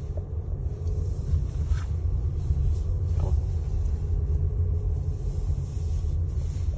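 Low, steady rumble inside a moving car's cabin: engine and road noise while driving.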